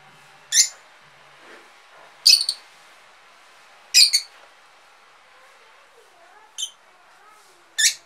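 Lovebirds giving five short, shrill shrieks, one every one to two seconds, over faint softer chirping.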